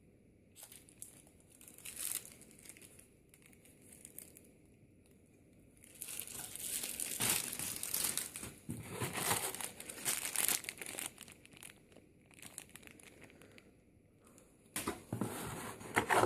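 Packaging being handled during an unboxing, crinkling and rustling in irregular spells, loudest over a stretch of several seconds in the middle and again near the end.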